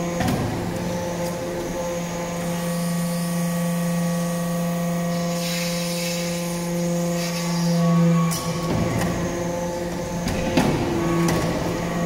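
Hydraulic power unit of a vertical metal-chip briquetting press running with a steady hum. A hiss joins in partway through, the hum swells and then drops away at about eight seconds, and a few sharp clicks follow near the end.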